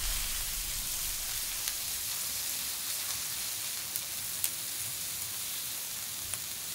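Meat frying in a hot pan: a steady sizzle with a few sharp pops.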